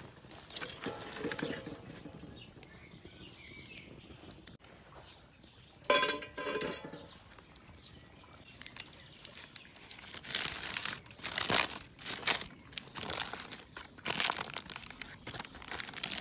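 Intermittent crinkling and scraping noises in short bursts. The loudest is a brief ringing scrape about six seconds in, and a run of quicker bursts comes in the second half.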